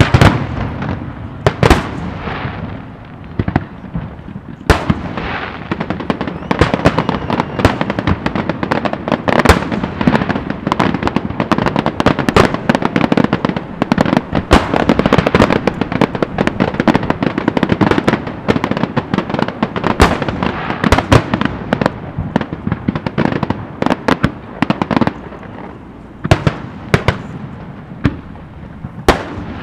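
Dense barrage of aerial firework shells bursting in rapid succession, many bangs overlapping. A loud bang comes right at the start, and the bursts thin out to separate booms near the end.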